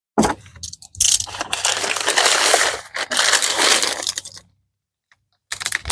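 Plastic packaging crinkling and rustling as it is handled and opened. It stops for about a second near the end, then starts again.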